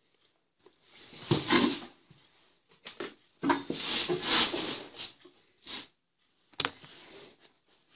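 Rustling and handling noise close to the microphone as a small hand tool is picked up and brought toward the lens, in two longer stretches, with a sharp click about two-thirds of the way in.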